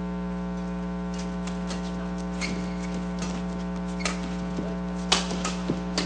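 Steady electrical hum on the broadcast feed under the sounds of badminton play: sharp racket-on-shuttlecock hits roughly once a second, with a few short shoe squeaks on the court.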